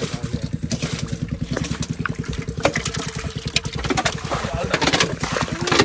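A small engine running steadily with an even, fast low chugging, with occasional splashes and squelches of hands working in wet mud.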